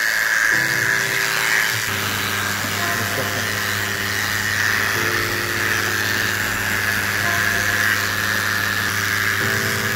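Electric dog grooming clippers buzzing steadily as they shave down a matted coat, over background music of held low notes that change every few seconds.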